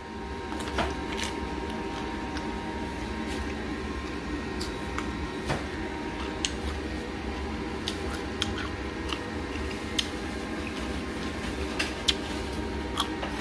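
Chewing a crisp, unripe green mango slice with the skin on: scattered short crunches and mouth clicks over a steady low hum.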